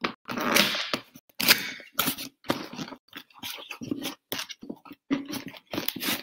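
Packaging handled by hand as an item is unwrapped from its box: a run of short, irregular rustling and crinkling noises.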